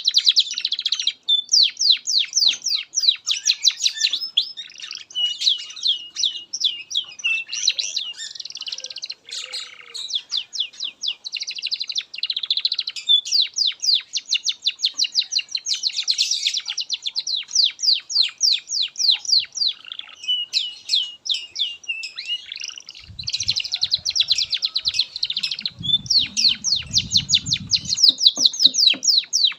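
Domestic canary singing a long, unbroken song of fast trills and rolls, each phrase a quick run of repeated high notes. A low rumbling noise sits under the song for a few seconds near the end.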